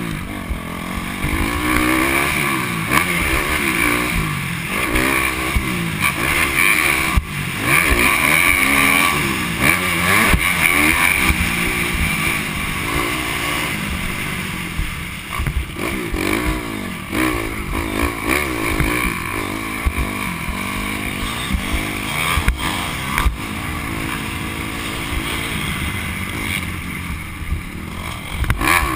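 Dirt bike engine revving up and falling off again and again as the rider accelerates and shifts, heard from the rider's helmet.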